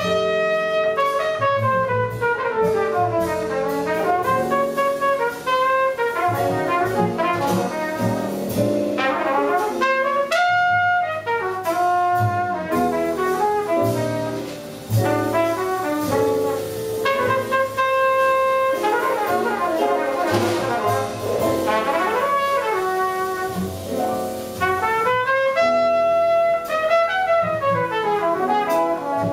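A jazz quintet playing live, with a trumpet carrying a running solo line in quick rising and falling phrases over piano, double bass and drums.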